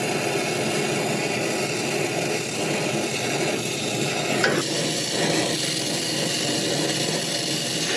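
Oxy-fuel brazing torch flame hissing steadily while it heats a copper refrigerant line joint at a compressor, with one brief click about halfway through.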